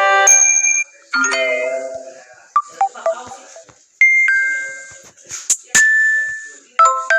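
Samsung Galaxy A71 ringtones previewed one after another through the phone's speaker. Each short chime or melody fragment cuts off abruptly as the next one starts, several in quick succession.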